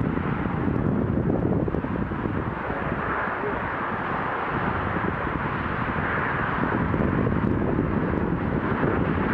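Steady hum of motorway traffic crossing a viaduct, with swells about three, six and nine seconds in as vehicles pass.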